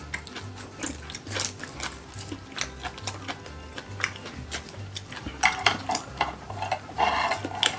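Chopsticks and spoons clicking and scraping against glass and stoneware bowls while eating, a run of sharp irregular clicks. Background music with a steady low beat underneath.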